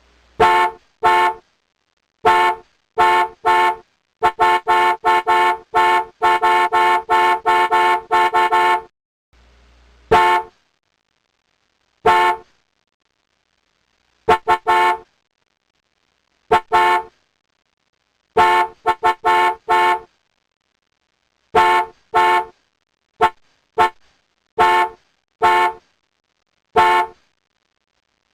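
Car horn honking in short beeps. It opens with paired and single beeps, then a rapid string of many beeps from about four to nine seconds in, then single and double beeps spaced a second or two apart.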